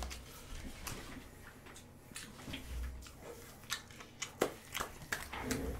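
Faint chewing with soft mouth noises, and a series of light clicks and taps from handling a paper noodle cup that grow more frequent in the second half.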